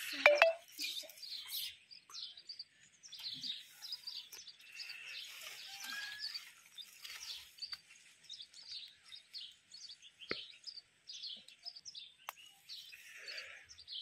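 Small birds chirping and twittering continuously in short, quick calls. A brief louder handling noise comes right at the start, with a couple of sharp clicks later on.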